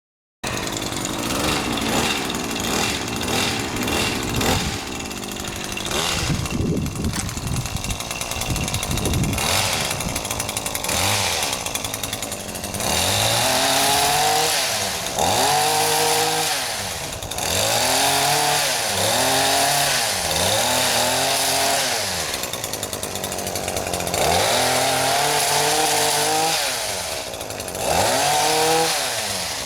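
Chainsaw running, cutting steadily at first, then from about halfway revving up and down over and over, each rev rising and falling in pitch over a second or two.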